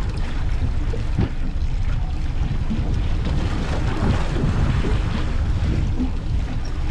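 Wind buffeting the microphone over the sea and a boat, a steady low rumble with no pauses.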